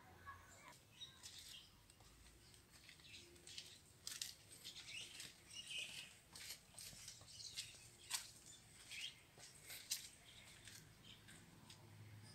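Quiet outdoor ambience with faint birds chirping here and there, and scattered light clicks and scuffs of footsteps on concrete.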